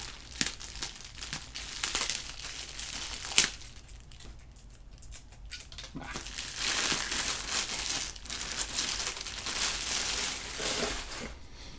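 Plastic bubble wrap crinkling and rustling as a wooden Go bowl is unwrapped and lifted from its box. There is a sharp tap about three and a half seconds in and a brief lull after it, then steady crinkling through the second half.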